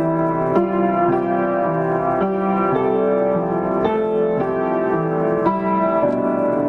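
Piano played by an adult learner of about fourteen months: slow, sustained chords with a new note or chord struck roughly every half second.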